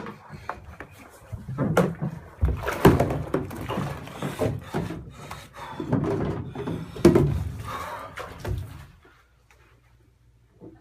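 A man getting up and out of a full bubble bath: bath water splashing and sloshing, with knocks against the tub. A telephone handset clunks onto its cradle at the start. The splashing stops about nine seconds in and it goes quiet.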